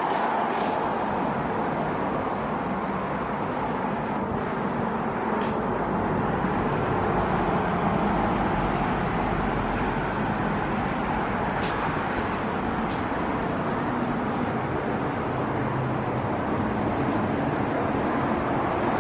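Steady road traffic noise, a continuous rush of passing vehicles, with a few faint brief clicks.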